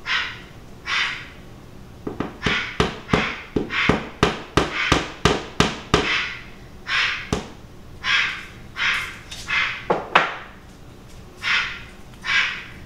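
A wooden mallet knocking into a wall to make a hole for hanging: a quick run of about a dozen sharp knocks, roughly three a second, beginning about two seconds in and lasting some five seconds, with one more knock near the ten-second mark. Short squawks, which may be a pet parrot's dog-like barks, recur in between.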